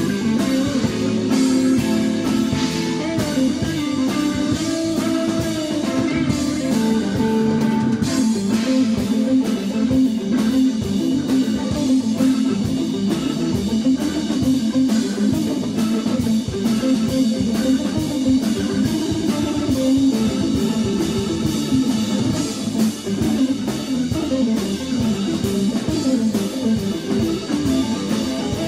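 Background music: guitar-led rock with a drum kit keeping a steady beat.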